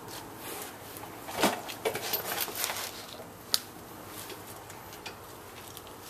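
Scattered metal clinks and knocks as a 2004 Volvo XC90's rear brake caliper is handled and seated onto its bracket over the rotor, with a louder knock about a second and a half in and a sharp click about three and a half seconds in.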